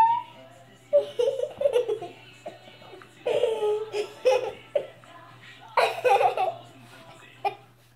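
A young child laughing in several bursts of giggles.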